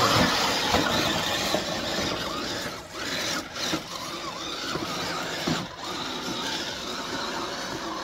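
Electric motors and gear drivetrains of RC scale crawler trucks (a Redcat Gen 8 and a Traxxas TRX-4 Sport) whining, the pitch rising and falling with the throttle, as they wade through a shallow creek over splashing water.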